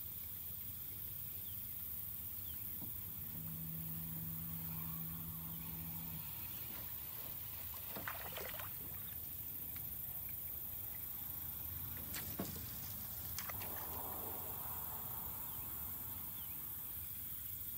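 Steady low wind rumble on the microphone, with a low steady hum a few seconds in and a few sharp clicks past the middle, followed by a short soft hiss.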